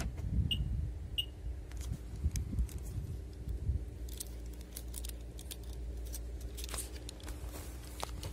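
Light clicks and rattles of a Volkswagen Passat key fob being handled, with two short high chirps about half a second and a second in.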